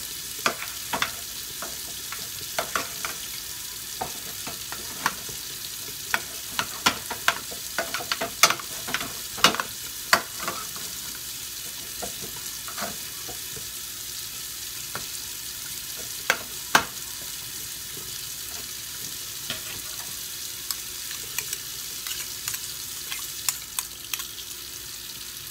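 Metal slotted spoon stirring thick cooked grits in a stainless steel pan, clinking and scraping against the pan at irregular intervals over a steady faint hiss.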